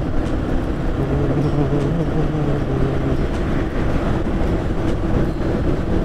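Motorcycle cruising steadily along the road: a constant engine hum, with a slight rise in pitch about two seconds in, over steady road and wind noise.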